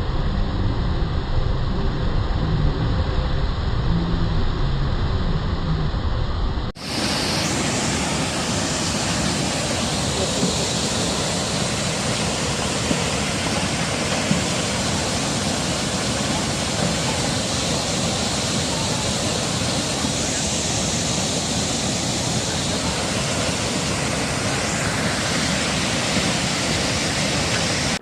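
Steady, loud rushing of a swollen river in flood: an even wash of water noise with no breaks, starting abruptly about seven seconds in. Before it, background music plays.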